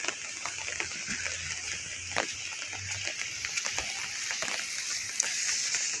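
Rain falling on an open umbrella: a steady hiss of rain with many small, irregular taps of drops on the canopy.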